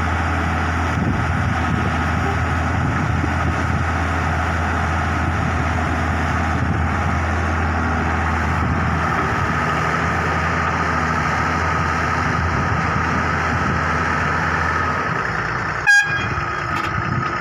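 Wheeled excavator's diesel engine running steadily under working load as it digs and swings earth to a dump truck, with a steady high whine over the engine's low hum. About sixteen seconds in there is one very short, sharp toot.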